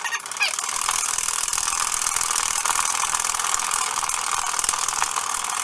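Egg whites being whisked by hand in a bowl: a fast, steady rattle of the whisk working against the bowl as the whites are beaten toward stiff peaks.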